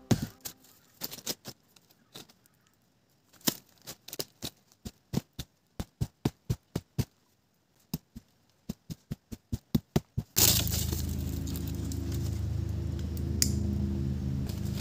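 A run of short, sharp wooden knocks, about three a second, from wood being struck by hand. Background music with a steady low beat cuts in suddenly near the end.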